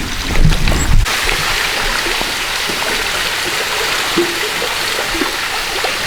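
Small waterfall splashing into a stream, a steady rush of falling water that comes in abruptly about a second in, after a few low thumps.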